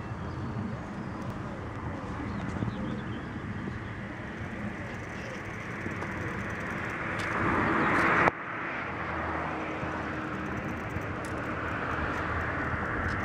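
Outdoor ambience: a steady background rush. About six and a half seconds in a louder hiss swells for a second and a half, then cuts off suddenly.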